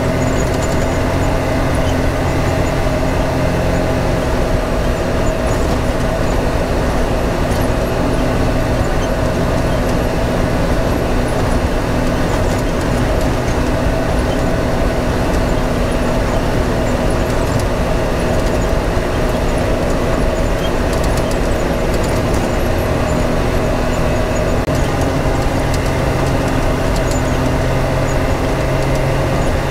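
Side-by-side UTV's engine running at a steady pitch while cruising a dirt track, with tyre and wind noise underneath.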